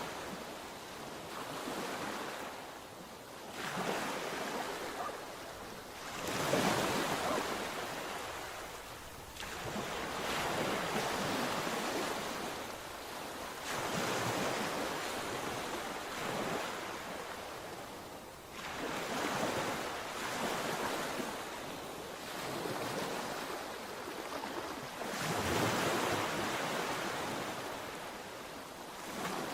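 Sea waves breaking on the shore one after another. Each wash of surf swells up and fades away every few seconds.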